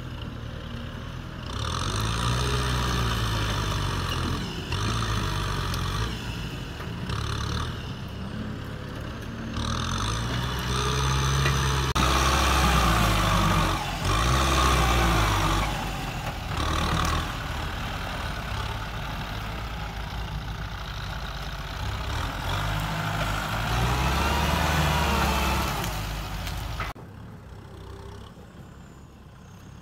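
Kubota M6040SU tractor's diesel engine working under load as its front dozer blade pushes dirt and brush, the engine note rising and falling again and again. About three seconds before the end the sound drops abruptly to a fainter, steadier engine sound.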